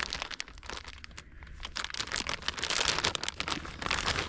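Plastic bag of shredded cheese crinkling as it is handled and opened, a dense irregular crackle.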